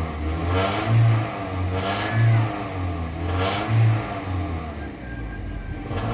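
Toyota Corolla engine revved in three short throttle blips, its pitch rising and falling back to idle between them.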